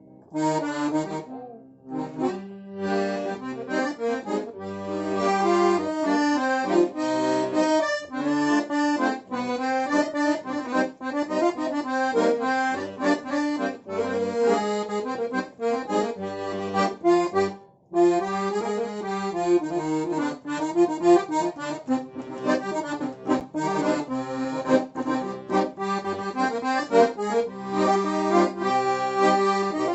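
An accordion playing a tune, a melody over held bass and chord notes, as it is tried out just after a repair. The playing breaks off briefly about eighteen seconds in, then resumes.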